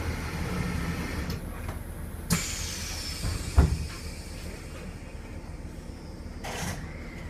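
E721 series electric train at the platform: a steady low hum with a short hiss, a sharp click a little over two seconds in, and one loud thud about three and a half seconds in.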